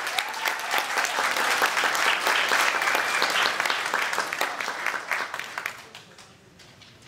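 Audience applauding, dense clapping that dies away about six seconds in.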